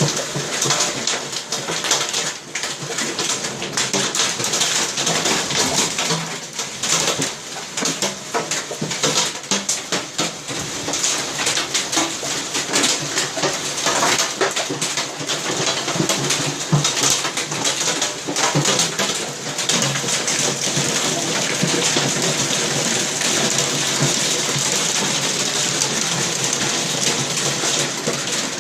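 Heavy thunderstorm rain: a steady hiss with dense, irregular tapping of drops.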